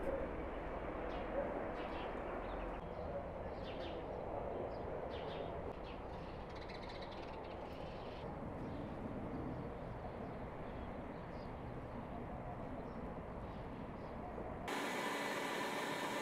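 Outdoor rural background noise with faint, scattered bird calls. Near the end it changes abruptly to a steady hiss.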